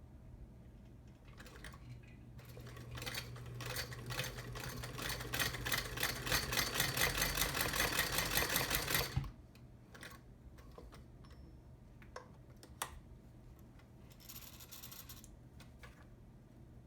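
1917 Singer Model 28 sewing machine run by its early electric motor through a friction pulley, stitching through thick denim. The needle mechanism clatters in a rapid, even rhythm over the motor's hum, speeding up over several seconds, then stops abruptly about nine seconds in. A few light clicks and a short rasp follow.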